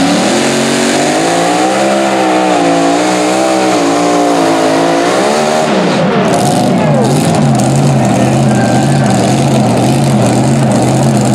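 Mini modified pulling tractor's racing engine at full throttle during a pull, its revs wavering up and down, then dropping away about six seconds in and settling to a steady, lower idle as the pull ends.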